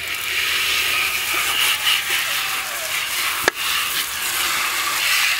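Water from a garden hose spray nozzle hissing steadily as it sprays into and rinses out a small plastic bucket, with one sharp knock about three and a half seconds in.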